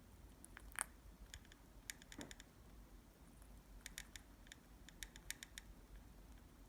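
Scattered faint small clicks and ticks, some in quick clusters, of a parrotlet's beak nibbling at a strawberry.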